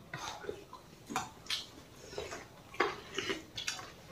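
Quiet eating at a table: scattered light clicks and scrapes of spoons and fingers against plates and steel bowls.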